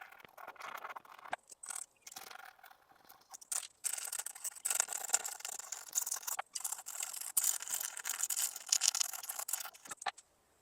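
Razor blade scraping black paint off the back of a hubcap's center emblem, in a rapid run of short, uneven strokes with brief pauses that stops near the end.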